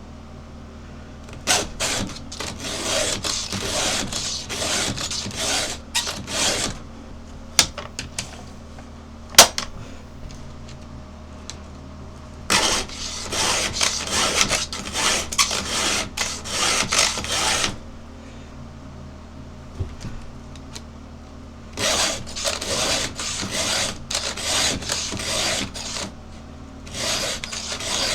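Files in a Husqvarna file guide being stroked across a 3/8 chainsaw chain, sharpening the cutters and taking down the rakers, in runs of quick rasping strokes with pauses between. A few sharp clicks fall in the first pause, the loudest about nine seconds in.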